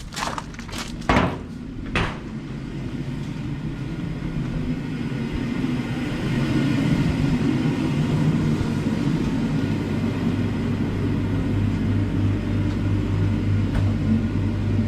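A few sharp clicks or knocks, then a steady low machine or motor rumble that grows louder about six seconds in and keeps running evenly.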